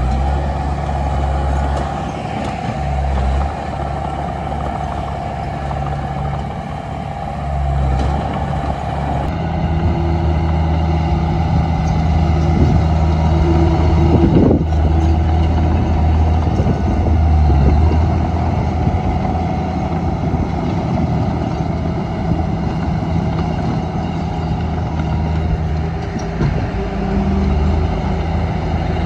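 Komatsu D31P bulldozer's diesel engine running under load, its note shifting up and down several times as it works. A few metallic clanks come through about halfway.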